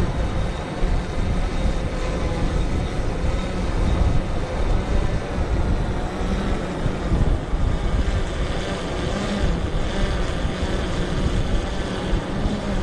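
Quadcopter drone's propellers humming in flight under heavy wind buffeting on the microphone and the wash of surf.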